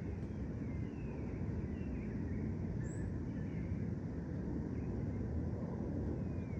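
Park ambience: a steady low rumble, with faint short bird chirps scattered through it and one higher, brighter chirp about three seconds in.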